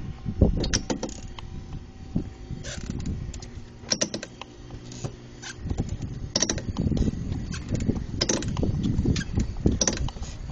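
Rear left wheel of a car rolling in neutral with the engine off, giving a grinding creak at one point in each rotation: a string of creaks and clicks at uneven spacing over low rolling rumble.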